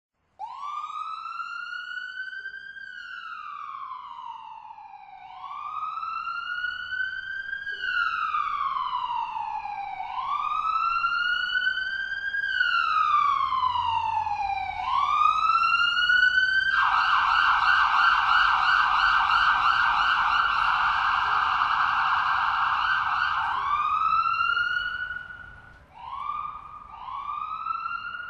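Electronic police siren sounding a slow wail, rising and falling about once every five seconds. A little past halfway it switches to a very fast warble for several seconds, then goes back to shorter rising sweeps.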